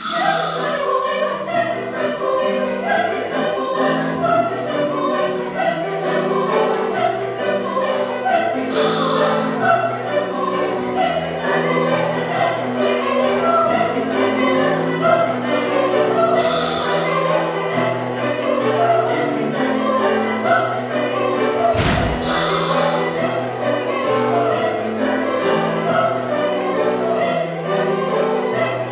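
Teenage choir singing in harmony with piano accompaniment. A single sharp thump sounds about three-quarters of the way through.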